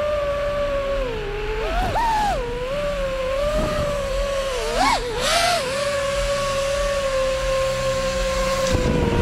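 An FPV freestyle quadcopter's brushless motors and propellers make a steady whine. Its pitch jumps up and drops back with quick throttle punches about two seconds in and again around the middle.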